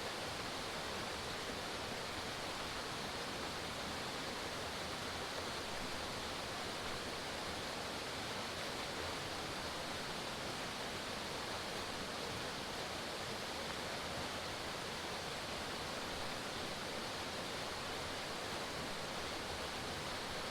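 Forest waterfall: water falling and splashing, a steady, even rush with no changes.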